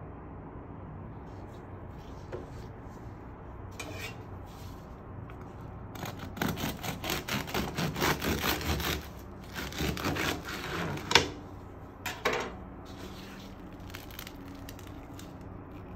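Bread knife sawing through the crisp crust of a sourdough walnut-raisin loaf on a wooden board, in quick rasping back-and-forth strokes about three a second, with two sharp cracks near the end.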